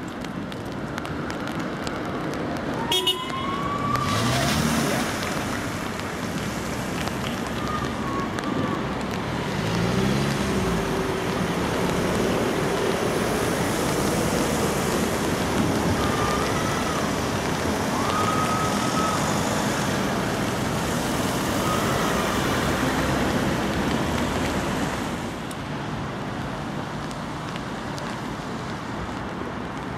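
Road traffic noise, a steady wash of passing vehicles that swells about four seconds in and eases off near the end, with a sharp click just before that and faint distant voices.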